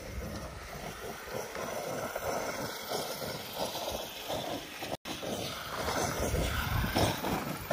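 Arrma Kraton 8S electric RC monster truck driving over dirt and gravel, its tyres crunching and throwing dirt, with wind on the microphone. The sound cuts out for an instant about five seconds in.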